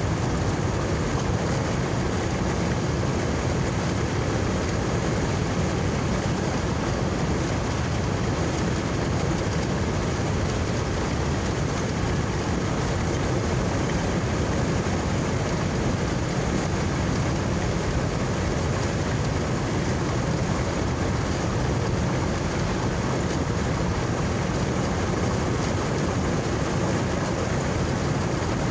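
Steady, unbroken road and engine noise of a car driving, heard from inside the cabin.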